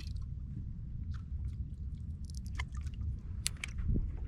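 Water slapping and lapping around a boat over a steady low rumble, with scattered light clicks and splashes. The sharpest comes about three and a half seconds in.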